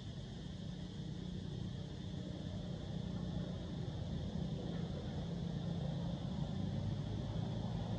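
Low, steady rumble of a motor vehicle's engine, growing slowly louder, over a steady high hiss.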